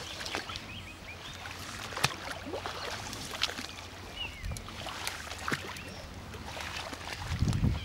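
Quiet lake ambience from a kayak: small water sounds and scattered light knocks against the hull, with a few short bird chirps. A low rumble of wind on the microphone comes near the end.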